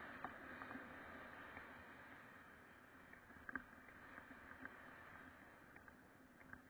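Faint rolling noise of mountain bike tyres on a paved path, slowly fading, with a few light clicks and rattles from the bike.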